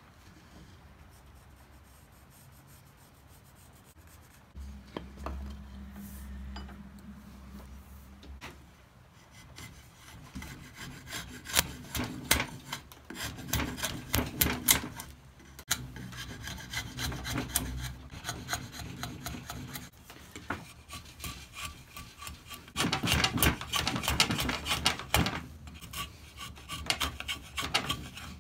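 Wood rasp being pushed along a hickory axe-handle blank held in a vise, shaping it in runs of rough scraping strokes that start about a third of the way in, the loudest run near the end. A low hum comes a few seconds in, before the rasping.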